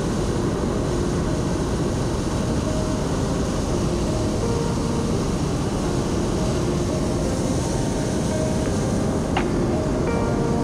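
Hot-air balloon burner firing in one long, steady burn to climb; the roar cut in abruptly just before and holds at an even level throughout.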